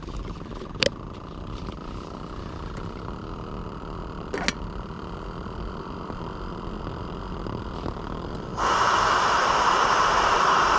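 An OEX Tacana gas camping stove's burner hissing steadily, with two sharp clicks about one second and four and a half seconds in. About eight and a half seconds in, the hiss suddenly jumps much louder and stays loud.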